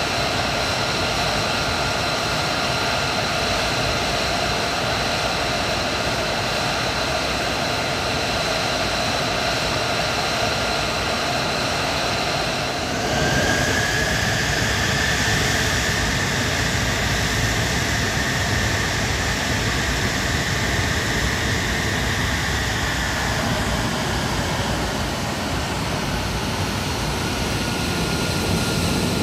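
A single-engine F-35A Lightning II's Pratt & Whitney F135 turbofan running on the ground, a steady rushing noise with a high whine. About halfway through the sound jumps louder and brighter, with a higher whine.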